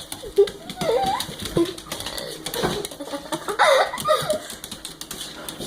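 A dog's claws clicking rapidly on a hard floor, with a few short high voice sounds in between.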